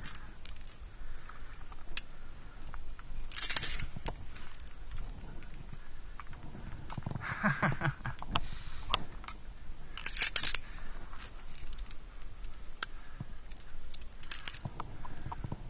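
Aluminium climbing carabiners and quickdraws clinking and jingling together, with two brighter metallic jingles about three and a half and ten seconds in, among fainter clicks and scuffs against rock.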